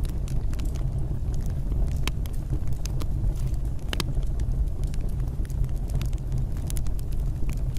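Fireplace fire burning: irregular sharp crackles and pops over a steady low rumble of flames.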